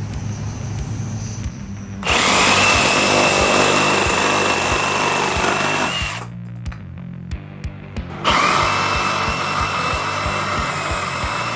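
Milwaukee M18 FUEL Hackzall one-handed reciprocating saw cutting a 2x2. It runs twice with a steady whine: for about four seconds starting two seconds in, then again from about eight seconds in.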